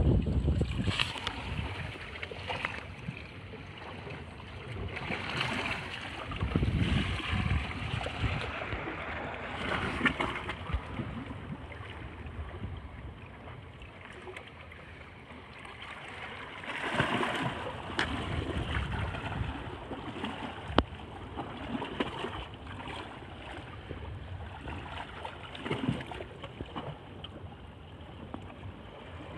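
Sea waves washing in and out among shore rocks, swelling and easing every few seconds, with gusts of wind rumbling on the microphone.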